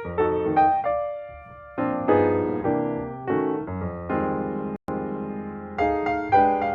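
Background music played on piano: a series of struck notes and chords, each fading away, with a brief cut just under five seconds in.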